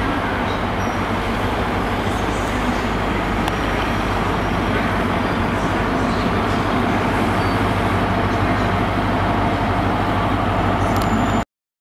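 High Speed Train's class 43 diesel power car drawing slowly into the platform and coming to a stand, its engine giving a steady drone over the rumble of the train. The sound cuts off suddenly near the end.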